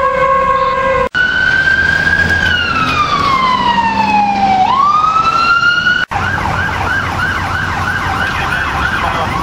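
Emergency-vehicle sirens in three quick cuts: a steady, slowly falling siren tone that breaks off about a second in, then an electronic wail siren rising, falling slowly and rising again, then from about six seconds a fast yelp of about four sweeps a second that turns back into a rising wail near the end.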